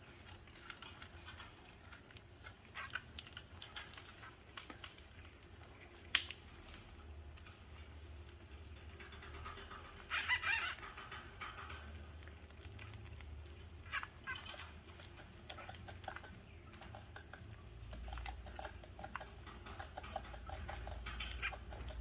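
A group of hamsters in a cage rustling and scrabbling in bedding and seed mix, with scattered small clicks and scratches. About ten seconds in comes a short, loud burst of high squeaking and chattering, the loudest sound, as the hamsters squabble over food. Sharp single clicks come about six and fourteen seconds in.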